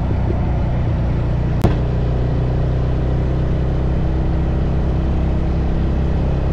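Suzuki DR650 single-cylinder motorcycle engine running steadily at road speed, with wind and road noise over it. A sharp click about one and a half seconds in.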